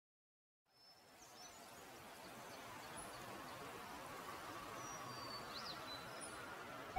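Faint ambient background noise fading in after a moment of silence, a steady hiss that slowly grows, with scattered faint high chirps and short pitch glides.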